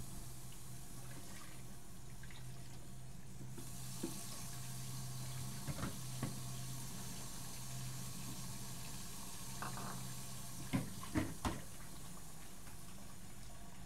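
Kitchen tap running into a sink as dishes are washed, with a steady low hum underneath. Bowls and a pan knock and clink against the sink a few times, the loudest a quick cluster of three knocks near the end.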